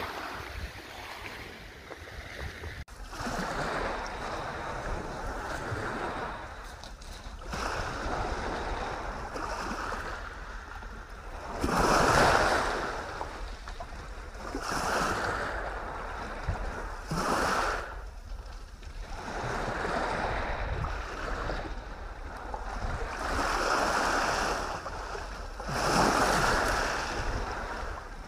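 Small waves breaking and washing up a shingle beach, one swell every two or three seconds.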